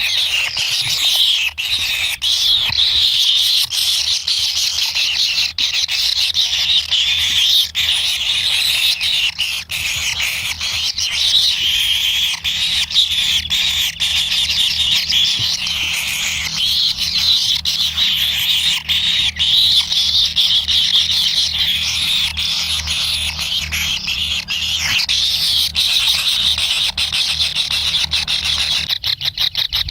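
Kingfisher chicks begging for food: a continuous, high, raspy chorus of calls that turns into a fast, even pulsing near the end.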